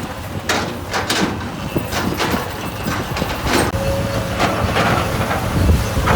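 Heavy earthmoving machinery at work: a diesel engine running steadily under repeated short knocks and scrapes, with a steady whine setting in about four seconds in.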